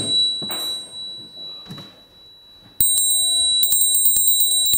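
Small brass hand bell shaken rapidly, its clapper striking many times a second with a clear high ring, rung to call people in. The ringing dies away within the first second, then starts again abruptly about three seconds in and keeps going.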